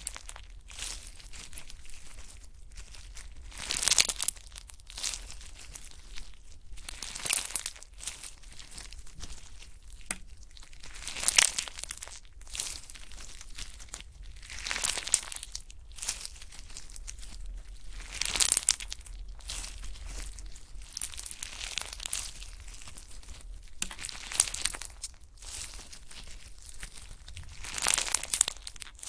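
Slime being pressed and squeezed by hand, with a loud noisy squish swelling up every three or four seconds over a steady low sound of handling.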